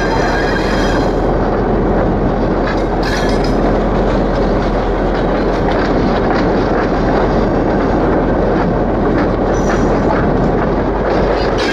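EMD GR-12 diesel locomotive running along rough, bumpy branch-line track, a steady rumble and rattle of the wheels and running gear. Brief high-pitched wheel squeals come at the start, about three seconds in, and again near the end as it works through the points.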